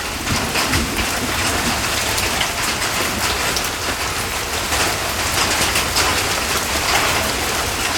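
Steady rain coming down, with many drops striking nearby surfaces as a dense scatter of fine ticks.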